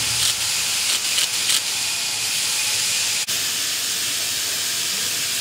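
A steady, loud hiss with no clear pitch, broken by a single short click about three seconds in.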